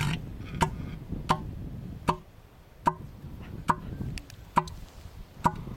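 Male elephant seal calling with its head raised, the bull's pulsed threat call: a steady series of sharp, resonant pulses, a little over one a second.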